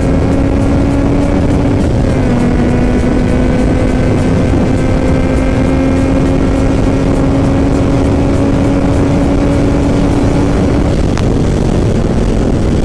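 Yamaha XSR900's three-cylinder engine held at high revs at around 200 km/h, under heavy wind rush. Its note dips briefly about two seconds in, then rises slowly in pitch, and fades out near the end as the throttle eases.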